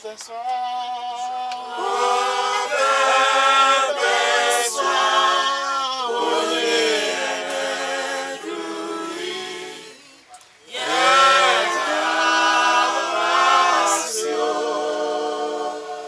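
A mixed choir singing a cappella in harmony, with a short break about ten seconds in before the voices come back in.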